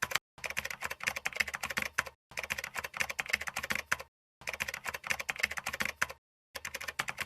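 Rapid computer-keyboard typing clicks, coming in even bursts of about two seconds, each followed by a brief pause.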